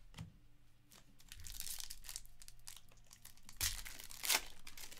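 A 2022 Panini Certified Football card pack's foil wrapper being torn open and crinkled, with two sharp rips near the end.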